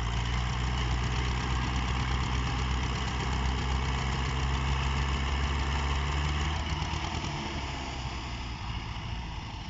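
Diesel engines of two Ursus tractors, a C-330 and a C-360, running steadily at idle, a low engine drone that grows fainter over the last few seconds.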